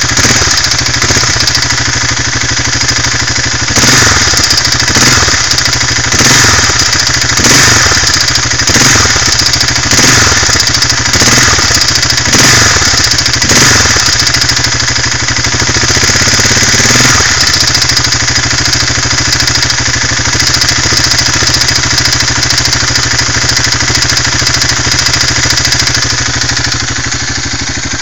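Minsk X200 motorcycle engine idling, with the throttle blipped about nine times over the first two-thirds, each rev rising and falling back, before it settles to a steady idle. A metallic knock from the cylinder comes in as the throttle is opened and closed, the sign of a burnt piston with play in the cylinder.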